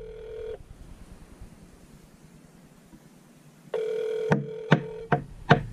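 Ringback tone of an outgoing phone call from a smartphone, still unanswered: one ring ends about half a second in, and the next begins about three seconds later. Near the end, sharp taps come in at about two or three a second.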